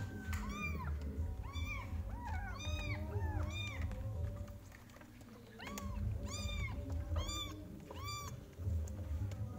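Several young kittens mewing repeatedly while being bottle-fed milk. The cries are short and high, rising and falling in pitch, often overlapping, with a brief lull about halfway through.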